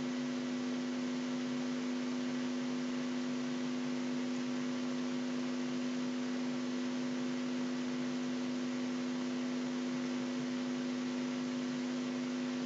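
Steady electrical hum with a constant hiss underneath, unchanging throughout: a low buzz made of a few fixed tones, typical of mains hum picked up in the recording chain.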